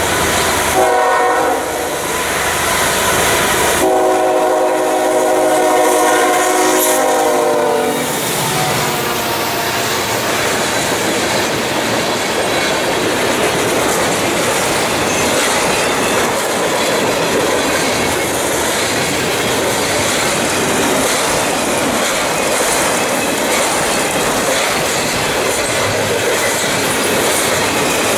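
Freight train locomotive's air horn sounds a short blast, then a long one of about four seconds as the train approaches. The freight cars then roll past close by, with steady wheel and rail clatter.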